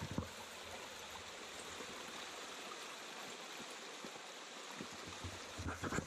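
Shallow rocky stream splashing over a small cascade: a steady rush of water.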